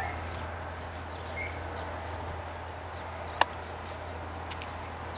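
Quiet outdoor ambience with a steady low hum, a faint short bird chirp near the start, and one sharp click about three and a half seconds in.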